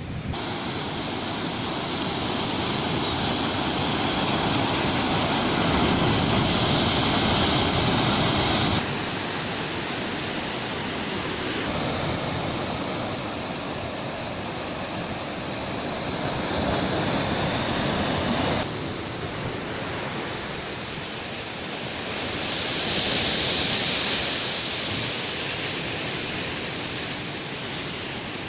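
Steady wash of ocean surf mixed with wind, swelling and easing, with sudden drops in level about nine and nineteen seconds in.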